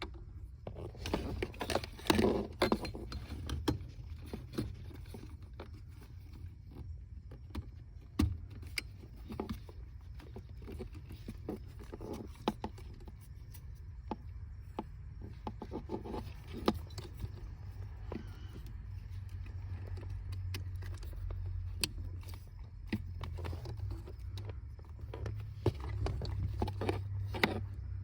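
Scattered clicks, knocks, scrapes and rattles of hands working under a car's dashboard: unplugging the throttle pedal connector, plugging in an add-on throttle controller's wiring harness and routing its wires, with a steady low hum underneath.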